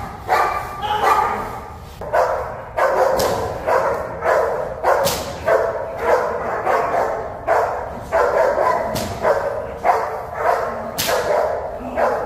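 German Shepherd protection dog barking hard and repeatedly, about one bark a second, at a decoy while held back on a leash. A few sharp cracks are heard among the barks.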